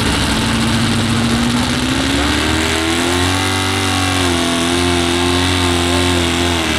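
Super stock two-wheel-drive pulling truck's engine, in a 1967–72 Chevrolet pickup, running at steady revs, then revving up about two seconds in and holding high as it pulls the sled.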